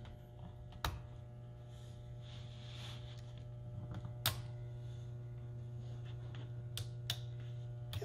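Sharp little clicks of a plastic spudger tool working the small latches of a laptop's ribbon-cable connectors, five in all and spread out, over a steady low electrical hum.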